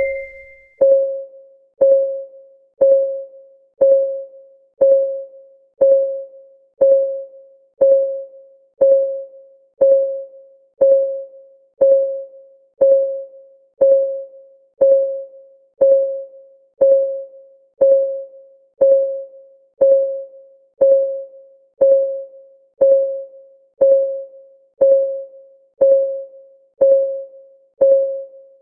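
Clock-ticking sound effect of a countdown timer: an even tick once a second, each tick a short pitched tone that dies away quickly.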